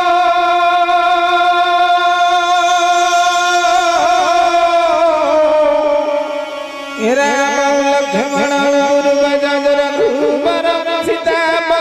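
Live accompaniment music for an Odia folk-theatre play: one long held note, rich in overtones, that wavers about four seconds in and slides lower. About seven seconds in, a new rhythmic phrase starts with a steady beat.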